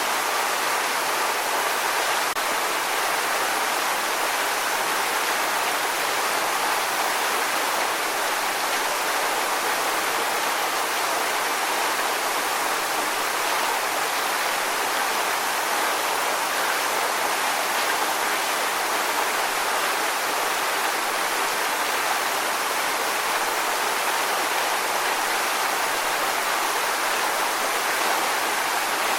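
Waterfall: a steady, unbroken rush of falling water, bright and hissy with little low rumble.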